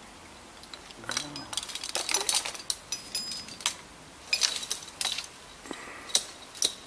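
Irregular metallic clinking and jingling, a string of sharp clicks, some in quick clusters.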